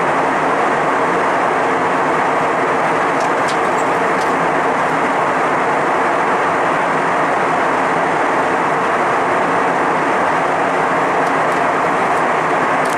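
Jet airliner cabin noise at cruise: the steady roar of engines and rushing air heard inside the passenger cabin.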